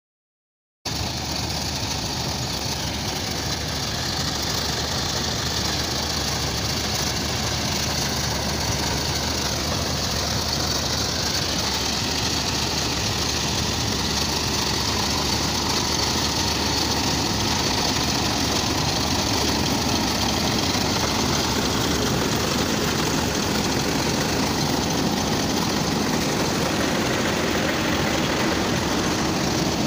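New Holland 8070 combine harvester running while cutting sunflowers: engine and threshing machinery giving a steady drone. It starts suddenly about a second in.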